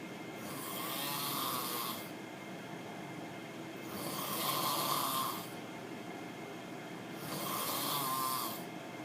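A sleeping person snoring loudly: three long snores, each about a second and a half, coming about every three and a half seconds.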